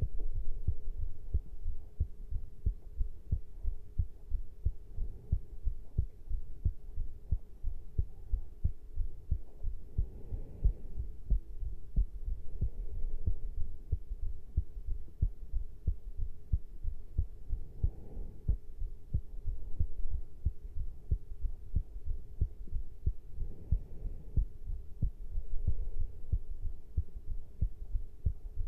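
Human heartbeat recorded after caffeine intake: an even run of low thumps continuing throughout, over a faint steady hum. A few soft brushing noises come through now and then.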